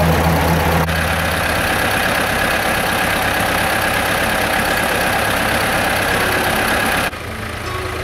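Tractor engines running at a steady speed. The sound changes abruptly about a second in and again near the end.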